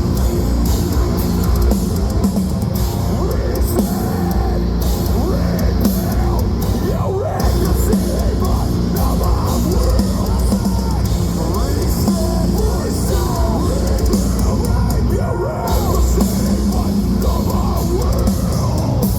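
Metalcore band playing loud live: distorted guitars and drum kit, with shouted vocals over them.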